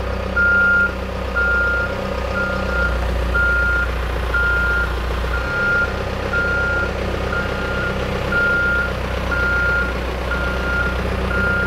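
Back-up alarm on a tree-moving machine with lifting forks, beeping steadily at about one and a half beeps a second over its running engine.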